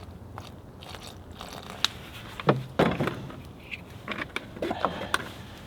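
Bannock ingredients being mixed by hand: irregular scraping, rustling and sharp clicks as the dough is worked, with a few louder clicks around the middle.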